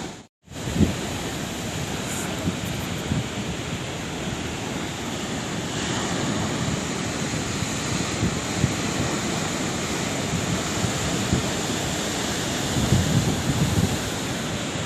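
Sea waves washing ashore, a continuous rush of surf with a few louder swells near the end. The sound cuts out completely for a split second just after the start.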